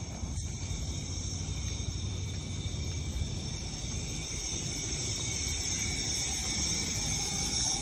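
Insects chirring steadily in several high tones, over a low steady outdoor rumble.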